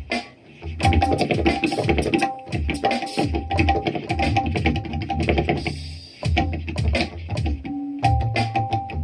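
Electronic tabla pad playing tabla sounds: fast rhythmic strokes, a ringing high-pitched stroke over deep bass strokes, with a brief pause about six seconds in.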